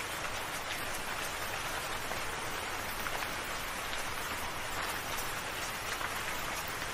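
Steady rain: an even hiss with scattered drop ticks.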